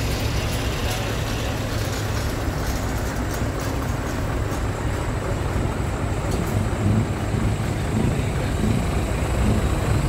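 Scania tractor units' diesel engines running as the trucks pull slowly away one after another, a steady low rumble. It grows louder near the end as an older Scania 4-series draws near.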